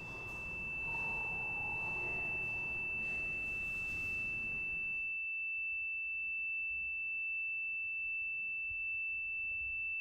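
A single high-pitched pure tone held perfectly steady at one pitch, without fading. Faint room noise underneath it drops away about halfway through, leaving the tone alone.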